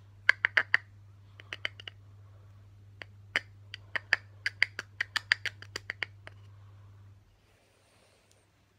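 A plastic loose-powder jar being tapped and shaken to get powder out through its sifter: quick clusters of sharp clicking taps, stopping about six seconds in.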